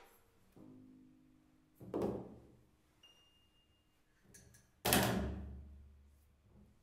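Sparse free-improvised music from a drums, double bass and piano ensemble. Two sudden struck sounds ring away, one about two seconds in and a louder one with a long decay about five seconds in. Quieter held notes sound in between.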